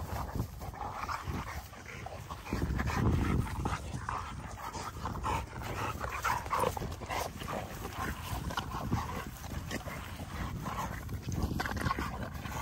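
XL American bully dogs rough-housing, making short, scattered vocal noises as they wrestle and scuffle together. It is rough play rather than a real fight: none of them is biting.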